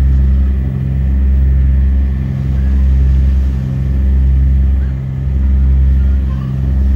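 A ship's engine running with a steady low hum that swells and fades about every second and a half, heard on board while the vessel crosses open sea.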